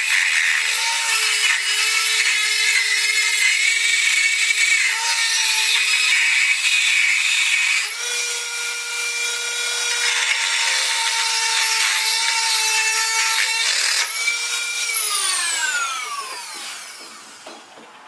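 Handheld high-speed rotary tool grinding on a metal engine mount: a steady high whine with scraping from the bit. Its pitch steps up about eight seconds in, and near the end the tool is switched off and winds down to a stop.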